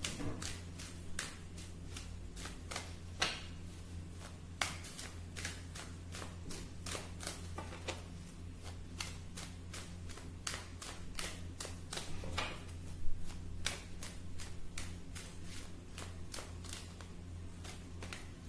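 A tarot deck being shuffled by hand: irregular sharp card snaps and taps, one to three a second, with one louder slap about two-thirds of the way through. A steady low hum runs underneath.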